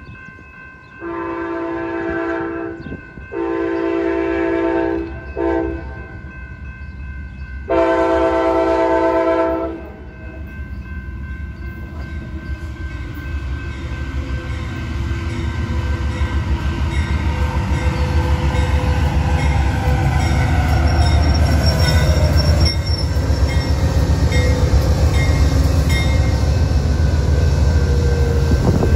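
Amtrak GE P42DC diesel locomotive blowing its horn in the grade-crossing pattern: long, long, short, long. After the horn stops, the engine and the train's running noise rumble louder and louder as the passenger train rolls in close past.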